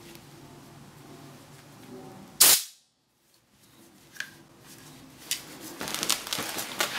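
Gloved hands handling a gas blowback airsoft rifle's metal magazine: faint rustling, then one sudden loud pop about two and a half seconds in, followed by a few sharp clicks and busier rustling and clicking near the end.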